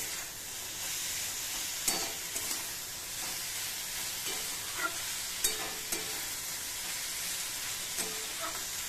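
Diced vegetables frying with a steady sizzle in a metal kadai over a turned-up gas flame, while a flat metal spatula stirs them, scraping and clicking against the pan now and then.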